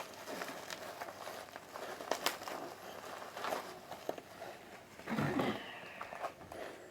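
Light rustling and scattered small clicks of packaging and comic books being handled, with a short low sound about five seconds in.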